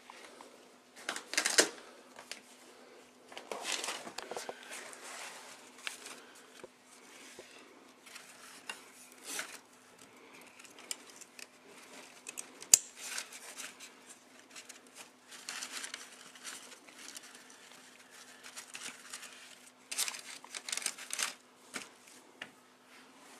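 Fabric, straps and plastic fittings of a bedside co-sleeper crib being handled and fastened: irregular rustling and scraping, with one sharp click about halfway through, over a faint steady hum.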